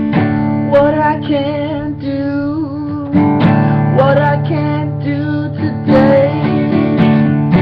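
Acoustic guitar strummed in chords, with a man singing a melody over it.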